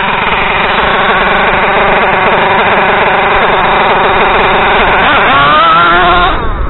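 Small nitro (glow-fuel) engine of an RC monster truck running at high revs, a buzzy, wavering whine that rises in pitch a little after five seconds and then cuts off suddenly.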